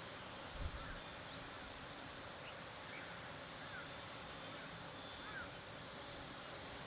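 Steady outdoor background hiss with a few faint, short bird chirps scattered through it. A brief low bump sounds about half a second in.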